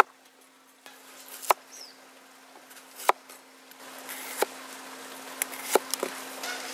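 Cleaver slicing through apple and cucumber on a wooden cutting board: single sharp knocks of the blade striking the board about every second and a half, coming quicker near the end.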